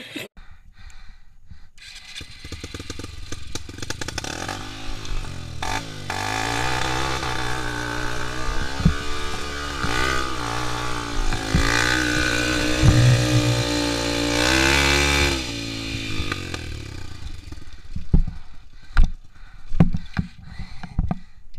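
Yamaha XTZ 125's single-cylinder four-stroke engine, through an aftermarket Protork exhaust, revving up and down repeatedly under load as the bike struggles in a rut on a steep dirt climb. The engine stops near the end, followed by scattered knocks and scrapes as the bike is handled.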